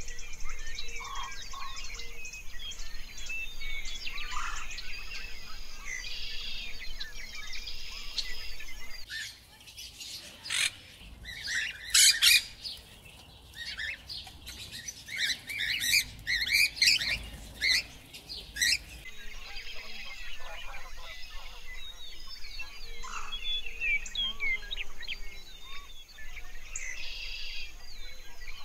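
Birds chirping and twittering, many calls overlapping. In the middle, for about ten seconds, they give way to louder, harsh, separate squawks.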